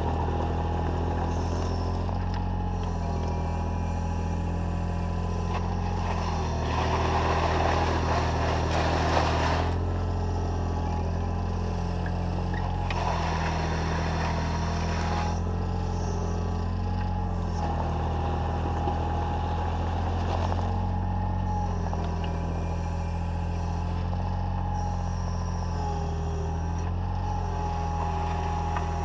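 Takeuchi TB014 mini excavator running steadily up close, a low diesel hum with a steady whine over it as the boom and bucket are worked. Twice, about a quarter and about halfway in, a rougher noise swells for a few seconds as the bucket works the gravel.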